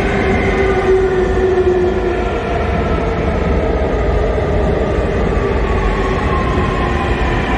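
Seoul Subway Line 4 electric train, trainset 4014, running along the platform over a steady rumble of wheels, its traction motors whining in several tones that fall slowly in pitch as it slows into the station.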